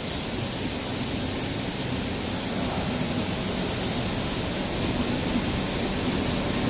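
Steady running noise of a silicone cable production line: a constant low machine hum under a high, even hiss.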